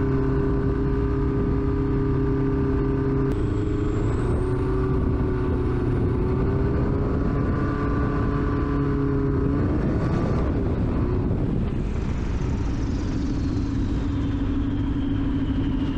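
A light aircraft's piston engine and propeller droning steadily at cruise. The engine note shifts in pitch a few times, about three seconds in and again about ten seconds in.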